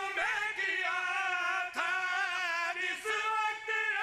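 A zakir and his backing singers, several men's voices together, sing Punjabi devotional verse in long, wavering held notes through a public-address microphone, taking short breaths between phrases.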